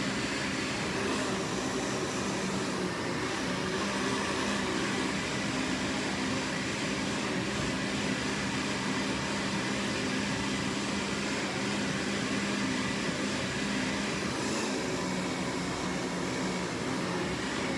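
Countertop blender running steadily, blending a protein shake with banana and ice cubes: an even whirring motor noise with a constant hum.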